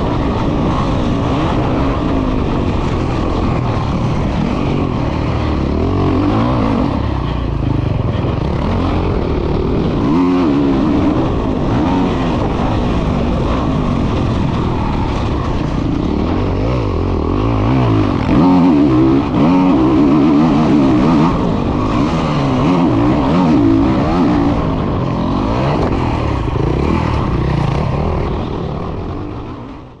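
Honda CRF450 motocross bike's single-cylinder four-stroke engine ridden hard on a dirt track, its pitch rising and falling with the throttle, heard from the rider's helmet. The sound fades out near the end.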